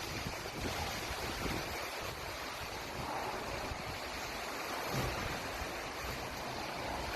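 Strong storm wind of around 45 mph blowing steadily, buffeting the microphone.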